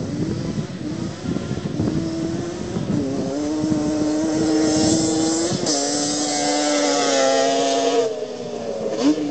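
Yamaha Banshee twin-cylinder two-stroke quad engine at full throttle on a short drag run, its note climbing and then held high and steady. The pitch steps down a little just past halfway, then falls away near the end as the throttle comes off, with one quick rev just before the end.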